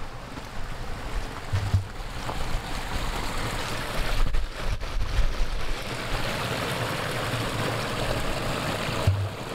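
Small forest brook trickling over grass and stones, growing louder after a couple of seconds, with two brief low thuds.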